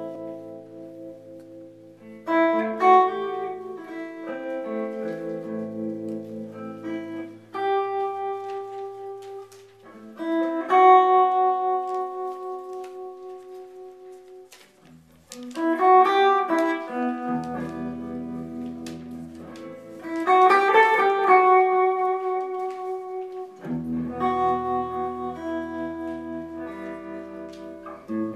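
Solo electric archtop guitar played clean through a combo amp: chords and single notes are struck and left to ring out in slow phrases, with brief lulls about a third and halfway in.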